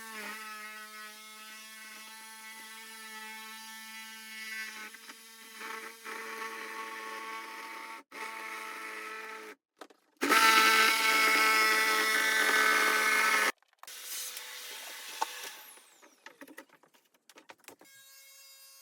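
Electric power drill running in several bursts with short stops between them, a steady motor whine; the loudest burst starts about ten seconds in and lasts about three seconds.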